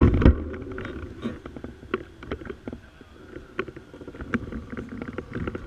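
Motorcycle engines idling with a steady low rumble, over scattered clicks and knocks, with a loud thump at the very start.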